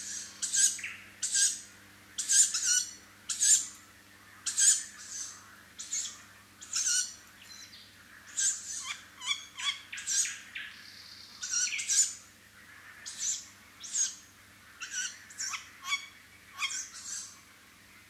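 Tawny owl fledgling giving its hissing begging call over and over, a short wheezy call every half second to a second, calling to be fed by its parent.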